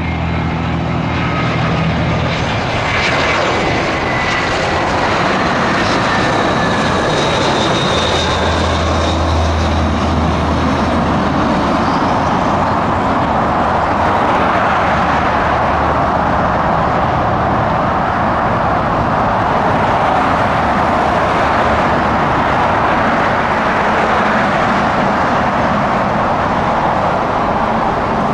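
Airliner jet engines running loud and steady as a plane passes, with a faint whine falling in pitch in the first few seconds.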